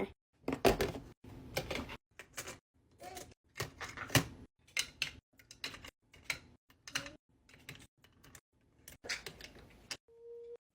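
Plastic fidget toys clicking and clattering as they are handled and set into a box, in quick irregular clicks and knocks. A brief steady tone sounds near the end.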